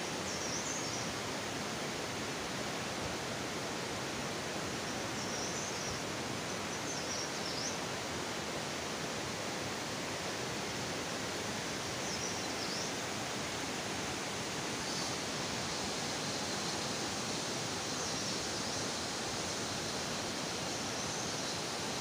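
Steady rush of flowing river water, with a bird's short high chirps now and then.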